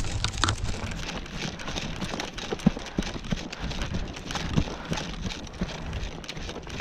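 Footsteps crunching through leaf litter and brush on a woodland trail: a run of irregular crackling steps.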